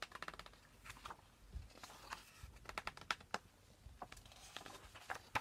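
Picture-book pages being handled and turned: faint paper rustling with scattered soft clicks.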